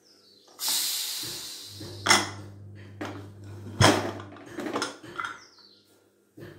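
Aluminium pressure cooker: a hiss of escaping steam for about a second, fading, then three sharp metal clanks as the lid is worked open and lifted off.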